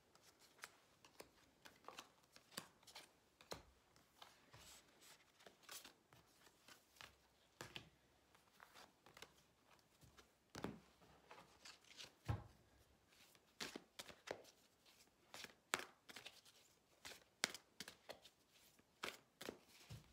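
Tarot cards being gathered up from a table and shuffled by hand: faint, irregular card clicks and slaps, with one low thump about halfway through.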